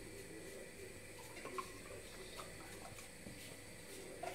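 Faint pouring of milk into a drinking glass, with a few light clinks of the glass.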